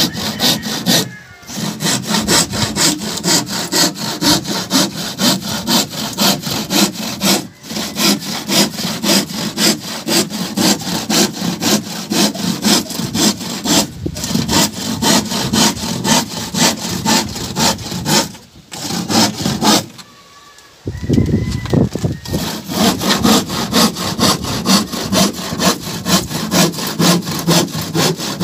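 Handsaw cutting through a sheet of plywood in quick, even back-and-forth strokes, about two or three a second. The sawing stops briefly a few times and pauses for about a second roughly two-thirds of the way through.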